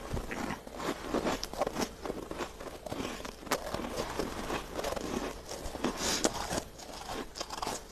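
Freezer frost being bitten and chewed: irregular crisp crunches and crackles, busiest about six seconds in.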